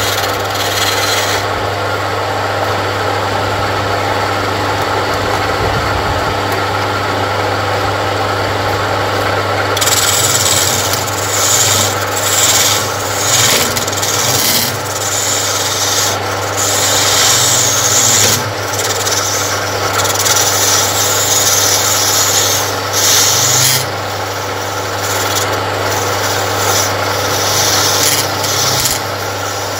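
Wood lathe driven by a 0.27 kW single-phase electric motor, running with a steady low hum, while a hand-held turning chisel cuts the spinning wooden workpiece. The cutting gives a scraping, hissing noise in repeated passes, stronger and more frequent from about a third of the way in.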